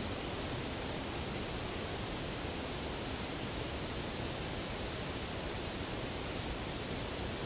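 Steady hiss with no distinct sounds in it: no knocks, howls or other events stand out.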